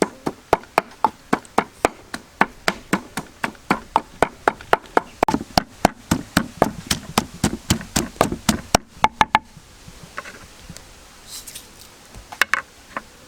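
Rapid, even chopping on a cutting board, about four strokes a second, stopping about nine seconds in, followed by a few light knocks near the end.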